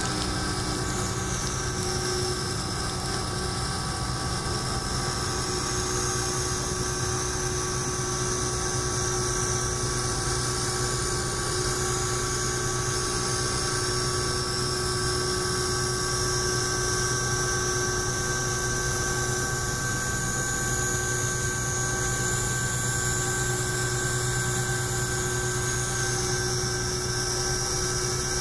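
Solid carbide end mill milling 4140 steel in a CNC machining center: a steady high cutting whine and hiss over the hum of the spindle, unbroken throughout.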